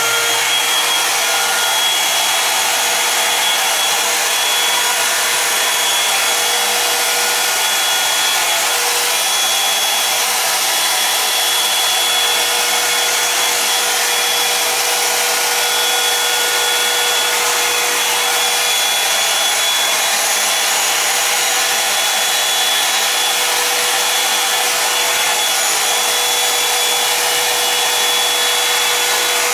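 Revlon One-Step hair dryer brush running steadily: a rush of air with a high, steady whine over it.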